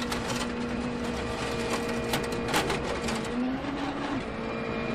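Ford Fiesta RS WRC rally car's turbocharged four-cylinder engine running at a steady high pitch. The pitch rises briefly about three and a half seconds in, then settles back, with scattered sharp clicks throughout.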